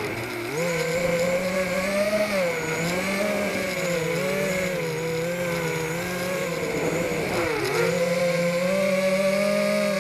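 A custom-built quadcopter's electric motors and propellers whining in flight, heard through its onboard camera. Several close pitches waver up and down as the throttle changes.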